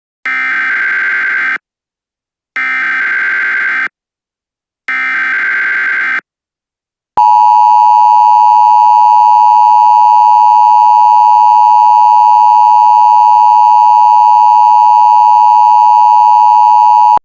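Emergency Alert System header: three bursts of digital data warble, each a little over a second long, then the steady two-tone attention signal held for about ten seconds before cutting off. It is the start of a new alert.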